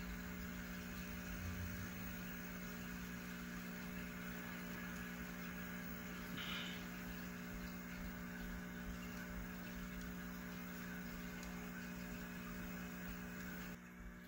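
Steady low electrical hum from N scale model freight trains running on the layout, with a brief high squeak about six and a half seconds in.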